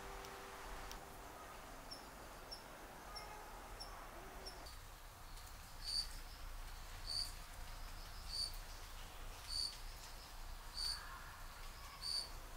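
Crickets chirping: faint, quick high chirps at first, then from about halfway a louder high chirp repeating evenly, about once every second and a bit, six times.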